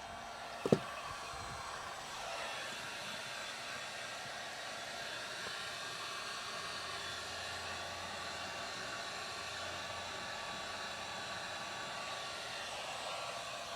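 A sharp click, then a steady airy whir like a small blower running.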